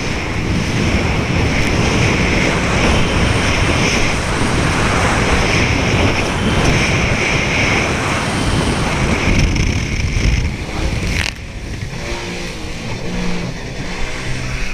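Jet ski running at speed, a loud rushing noise covering the engine. About 11 seconds in there is a sharp knock, after which the sound drops to a quieter, steadier engine note.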